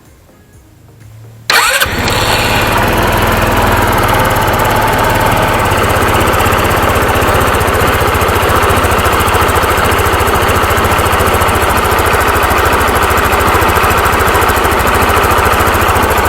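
A Rusi RFI 175's fuel-injected engine starts suddenly about a second and a half in, catching at once, then runs steadily at idle. It is being run to check whether the cracked fuel-injector hose joint, patched with tape, still leaks fuel.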